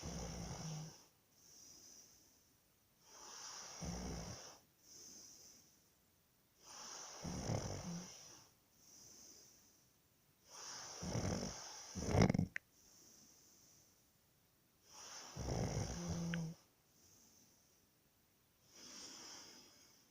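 A person snoring: five loud snores come about every three and a half to four seconds, each followed by a fainter breath, and a weaker snore falls near the end. The fourth snore comes as two quick snores in a row.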